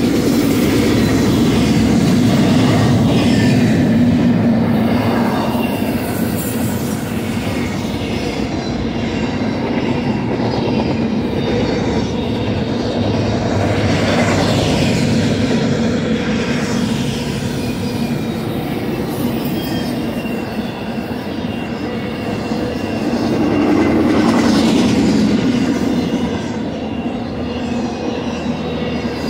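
Double-stack intermodal freight cars rolling past: a steady rumble of steel wheels on rail with a faint high wheel squeal, swelling louder three times as the cars go by.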